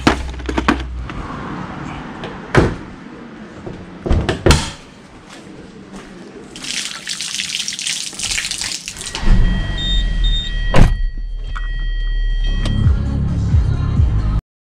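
Tools and a plastic socket-set case clattering with a few knocks. Then water runs from a tap over hands for a couple of seconds. Then comes a thump, and a Hyundai Sonata's engine running with short electronic beeps from the car.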